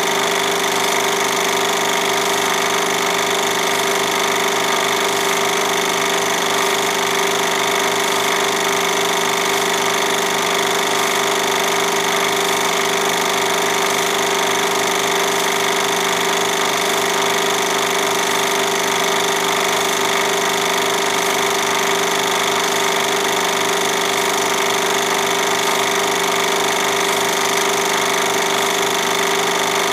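Film projector running: a steady mechanical whir and hum with an even, rapid pulsing beat underneath.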